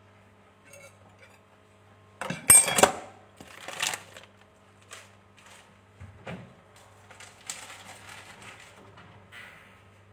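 Kitchen items clattering as they are handled, loudest in a quick cluster of knocks about two seconds in, then further scattered knocks and a stretch of lighter clinking and rustling near the end.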